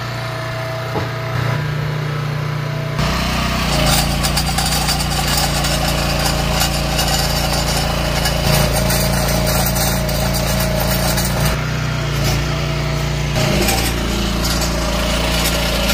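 Walk-behind trencher's small gas engine running under load, its digging chain grinding and rattling as it cuts a trench through hard clay and rock. The sound gets heavier about three seconds in.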